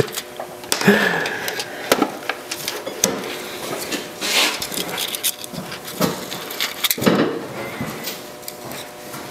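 Thin brass shim stock crinkling and scraping as it is worked by hand around the inside of a lathe's bearing bore, in irregular clicks and rustles.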